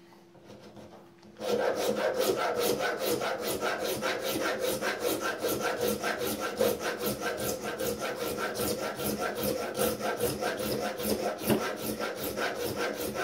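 Hand file rasping along the edge of a wooden straight-razor scale, steady back-and-forth strokes about three to four a second, starting about a second and a half in. The scale's sides are being chamfered at 45 degrees.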